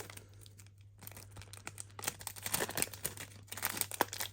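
Trading-card booster pack wrapper being torn open and crinkled by hand: a quick, irregular run of crackles and rips that grows busier after the first second, over a faint steady low hum.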